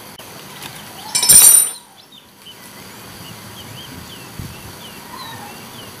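T-handle 8 mm socket wrench working a bolt on a twin-tub washing machine's spin tub, with one brief, loud, high metallic ring about a second in. Faint bird chirps follow in the background.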